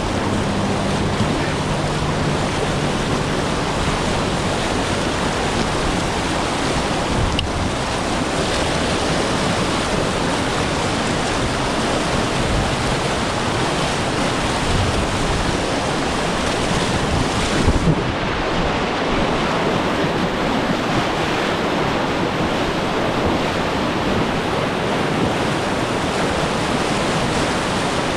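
Steady rushing of river water with wind noise on the microphone, a short knock about eighteen seconds in.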